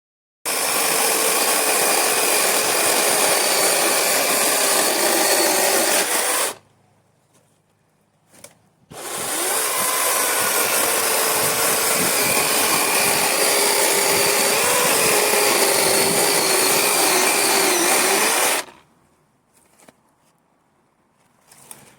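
Kiesbohr 12-inch cordless brushless electric chainsaw running in two long bursts of about six and ten seconds, with a short pause between them. Its whine is steady, and there is no sound of an idling engine during the pause.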